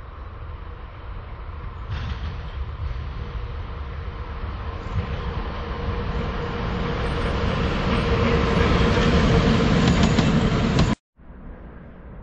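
PKP Cargo ET22 six-axle electric freight locomotive running light, approaching and growing steadily louder, with wheel noise on the rails and a steady hum from the locomotive. The sound cuts off abruptly about eleven seconds in.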